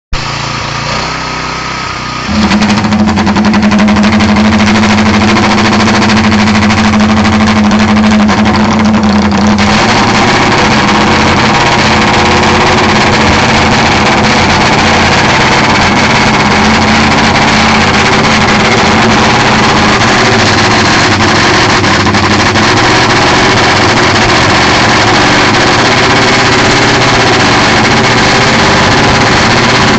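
Classic Benelli racing motorcycle engine running very loud. It is revved up sharply about two seconds in and then held steady.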